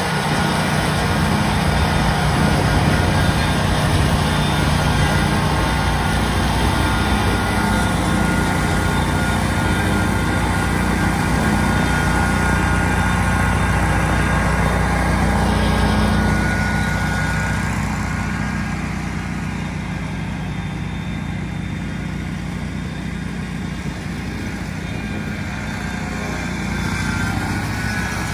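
Altoz TSX561 stand-on tracked mower running steadily with its cutting deck engaged, mowing thick wet grass. It gets a little quieter after about 16 seconds.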